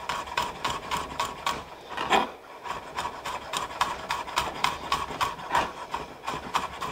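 Chef's knife mincing garlic cloves on a wooden cutting board: quick, even taps of the blade on the board, about five a second.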